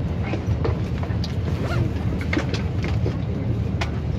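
Steady low rumble of an airliner cabin, with scattered light clicks and knocks from passengers and their bags moving in the aisle.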